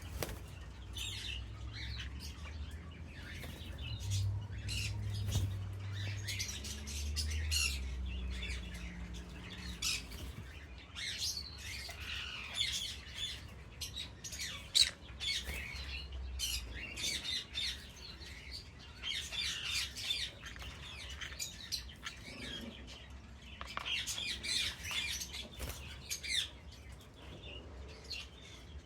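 Adult green-cheeked conures chirping and squawking, with many short calls one after another.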